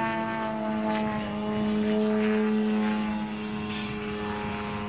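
Large radio-controlled aerobatic plane's engine and propeller running in flight, a steady engine note whose upper tones drift slightly in pitch as it manoeuvres. It gets a little louder about two seconds in, then eases off.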